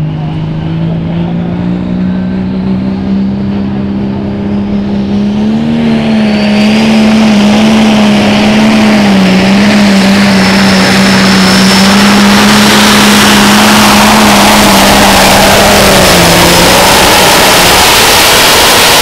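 John Deere diesel pulling tractor at full throttle hauling the sled: the engine note climbs as it leaves the line, then holds high and loud with a heavy rush of noise and a thin high whistle on top. The pitch dips briefly a couple of times and sags near the end as the pull slows.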